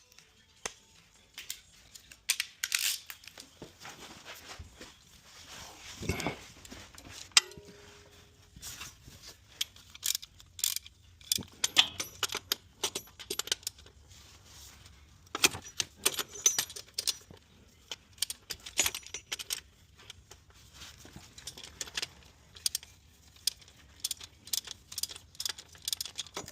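Irregular metal clinks and rattles of hand tools and sockets being picked up, set down and worked, in short clusters with gaps between.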